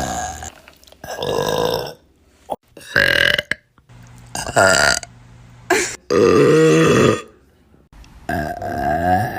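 A string of about six loud, drawn-out burps one after another, with short pauses between them. The longest and loudest runs about a second, a little past the middle.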